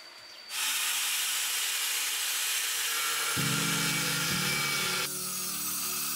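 Angle grinder with a thin cutting disc cutting through scrap steel plate. It starts abruptly about half a second in and runs steadily, with background music of low sustained chords coming in after about three seconds.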